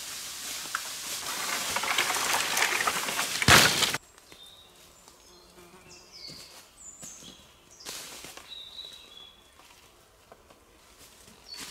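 Rustling and crunching that grows louder and ends in a sharp knock; then the sound drops suddenly to a quiet forest where small birds chirp now and then.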